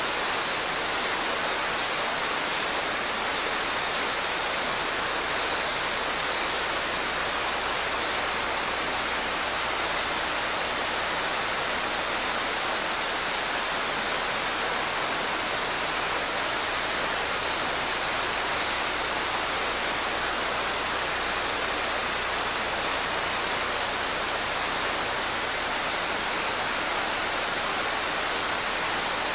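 Mountain stream rushing steadily over rocks, a dense even water noise. Faint, repeated song of robust cicadas (minminzemi) sits above it.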